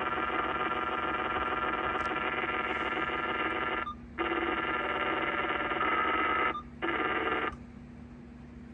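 Uniden SDS200 scanner's speaker giving out a steady buzzing sizzle, a noise that shows up after the scanner has been on for a few hours. It breaks off briefly twice and stops about seven and a half seconds in, leaving a faint hiss.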